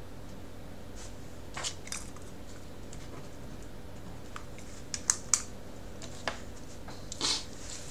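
A few irregular clicks and taps, the loudest a quick pair about five seconds in, then a short scratchy rustle near the end. A steady low hum runs underneath.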